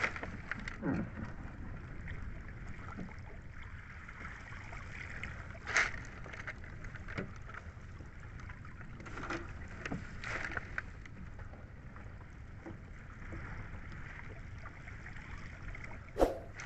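Wet clumps of cottonii seaweed being hauled out of the sea and piled into a small boat: water splashing and dripping, with a few sharper slaps and knocks, over a steady hiss of wind and water.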